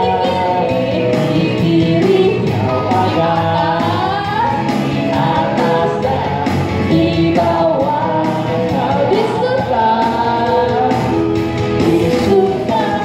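A man and a woman singing an Indonesian children's praise song into microphones over a band backing track with a steady beat.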